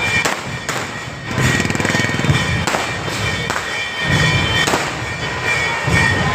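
Loud outdoor music with a low thumping beat, cut through by several sharp cracks.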